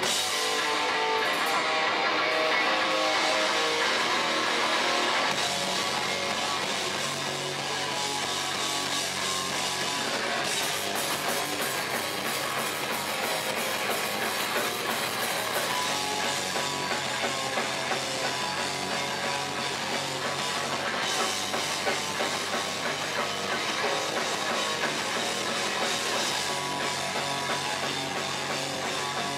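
A live metalcore/hardcore punk band playing: distorted electric guitar, bass guitar and a Yamaha drum kit. The cymbals and drumming grow denser about ten seconds in.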